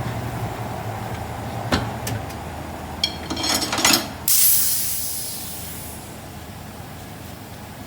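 Tire changer machine's motor humming, then stopping, followed by a few metallic clicks and rattles. About four seconds in comes a sudden burst of compressed-air hiss that fades away over about two seconds.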